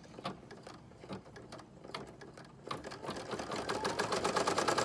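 Brother PE770 embroidery machine stitching. At first there are separate, spaced clicks. From about three seconds in the machine speeds up into a fast, even run of about ten stitches a second with a steady whine.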